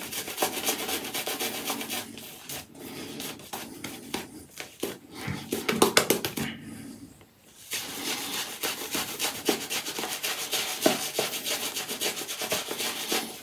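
Apshave Cashmere shaving brush scrubbing and swirling shaving-soap lather on a bearded face, a quick, continuous bristly rubbing while building the lather. The brushing stops for about a second near the middle, then resumes.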